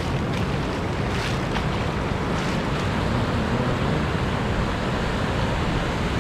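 Pacific Ocean surf breaking and washing up the beach in a steady rush, with wind buffeting the microphone.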